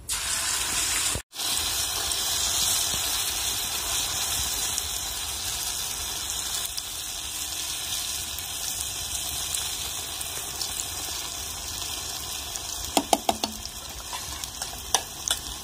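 Whole batter-coated bitter gourd sizzling in hot mustard oil in an aluminium kadhai, the hiss starting abruptly as it goes into the oil and then running steadily. A few sharp clicks come near the end.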